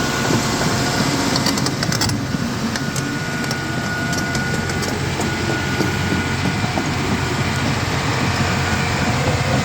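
John Deere 350G excavator's diesel engine running steadily as the machine travels onto the land, with a few metal clanks about a second and a half in.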